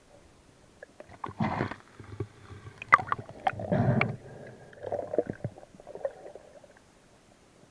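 Muffled underwater gurgling and knocking, heard through a submerged camera: a few short rumbling bursts with sharp clicks, the loudest click about three seconds in.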